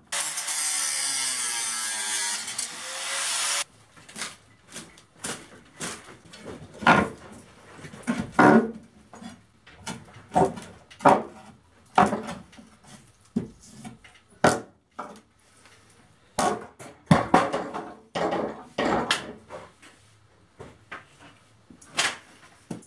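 An angle grinder cutting into an old rotten wooden ceiling beam for about three and a half seconds, its motor pitch wavering under load, then cutting off suddenly. After that comes a long run of irregular knocks and blows on wood as the beam is struck and worked loose.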